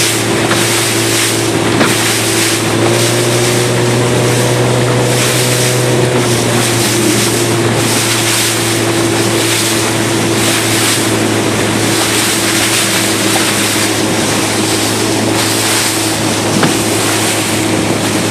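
Motorboat engines running at speed, a steady drone that carries an extra higher note for a few seconds near the start, under the continuous rush of spray and bow wash and wind buffeting the microphone.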